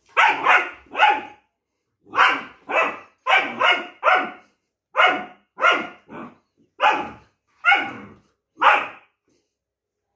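Long-coat German Shepherd puppy barking repeatedly: about fifteen short barks, some single and some in quick pairs, stopping about a second before the end. It is the puppy's protest, "arguing" back at being offered a multivitamin.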